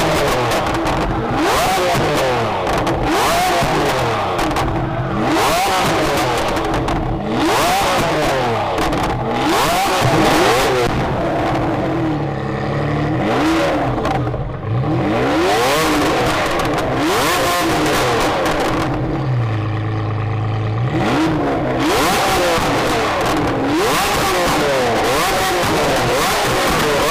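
Lamborghini engine revving hard again and again, its pitch climbing and falling back each time. Twice it drops to a steady low idle for a second or two before revving again.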